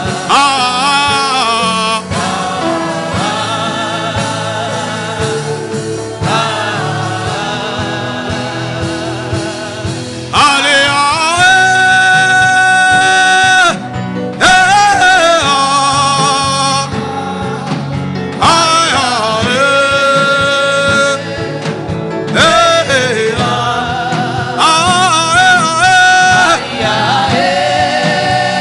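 Gospel music with singing over a steady accompaniment, the voices holding long sustained notes.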